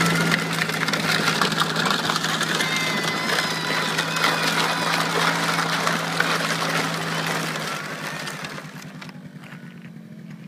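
Small quad ATV engine running steadily while towing, over a loud rough scraping of a plastic sled and toy car dragged across gravelly dirt. About eight or nine seconds in the scraping stops and the engine is heard fainter, pulsing.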